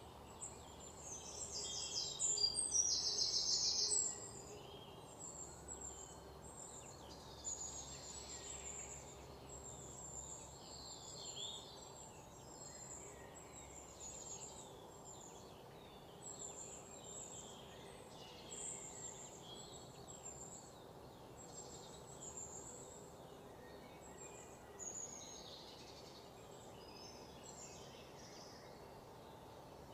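Birds chirping and calling again and again over a steady low background hum, with a louder, rapid trill between about two and four seconds in.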